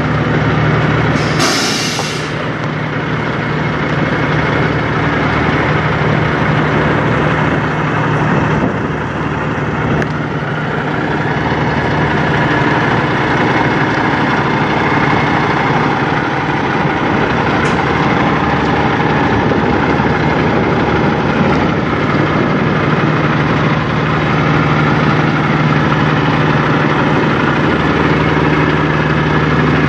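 Peterbilt car-hauler semi truck's diesel engine idling steadily, with a short hiss about two seconds in.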